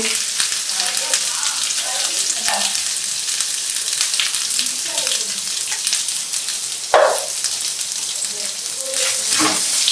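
Cumin seeds, green chilli paste and ginger paste sizzling and crackling steadily in hot peanut oil in an aluminium kadhai, as red chilli powder is spooned in. A single sharp tap sounds about seven seconds in.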